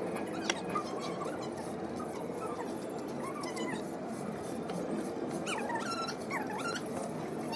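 An animal whining in several short, curved, squealing calls, a few of them close together near the end, over a steady background noise.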